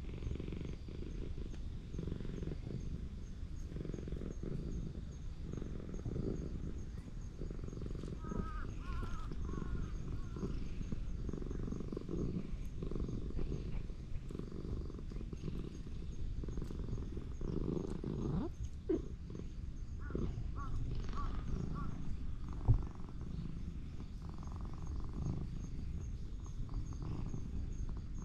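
Elderly ginger tabby cat purring steadily while being stroked, with two short wavering higher-pitched calls, about eight and twenty seconds in, and a single sharp thump about three-quarters of the way through.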